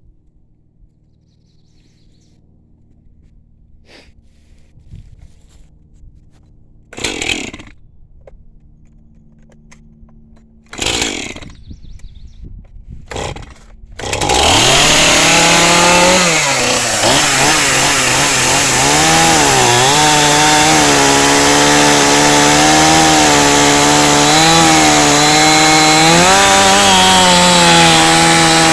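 Chainsaw on an Alaskan chainsaw mill pull-started: three quick cord pulls, then it fires about fourteen seconds in. It runs at high speed, its pitch sagging and recovering as it works along the log.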